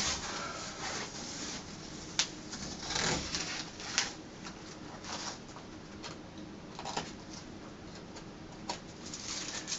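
Peel-and-stick wallpaper mural being handled and rubbed against the wall at the seam: irregular short papery scrapes and brushes, with a few sharper ticks.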